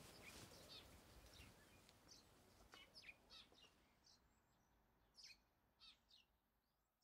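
Faint birdsong: scattered short, high chirps over a quiet outdoor background that fades away near the end.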